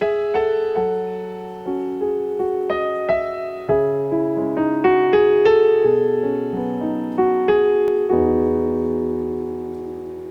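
Background piano music: a slow melody of struck notes over sustained chords, ending on a long held chord that fades out.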